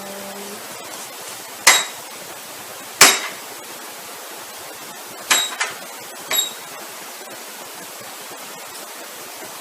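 Cash register keys pressed one at a time: about five sharp clicks spread over several seconds, two of them with a brief high beep.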